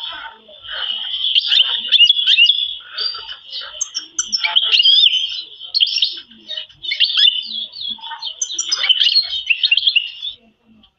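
Domestic canary singing a long, unbroken warbling song of rapid trills and quick rising and falling notes, which cuts off near the end.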